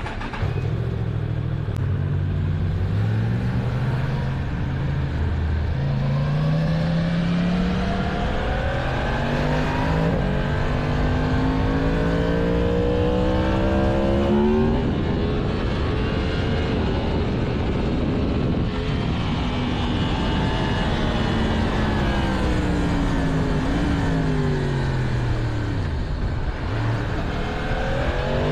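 Stock 2022 Yamaha MT-10's crossplane inline-four heard from the bike while riding: it climbs in pitch through several gears, each shift dropping it back, until about halfway. Then wind rush covers the engine for a few seconds, the engine note falls away steadily as the bike slows, and near the end it climbs again.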